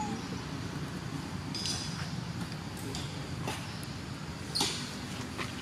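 Outdoor background noise: a steady low rumble with scattered faint clicks and ticks, a short high rustle about a second and a half in, and a sharper noise about four and a half seconds in.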